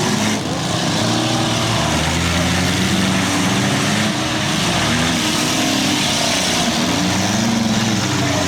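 Engines of several compact cars in a demolition derby, revving up and down at once, their pitches rising and falling over one another.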